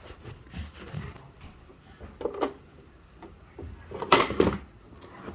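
Knocks and clicks of hard objects being handled: a few soft taps, then a sharper pair, and a louder clatter of several hits about four seconds in.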